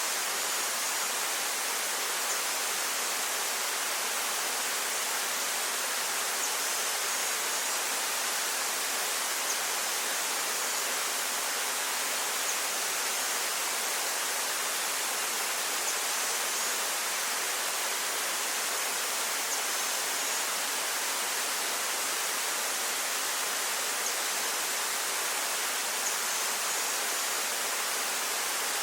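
Waterfall: an unbroken rush of falling water, a bright hiss with little deep rumble.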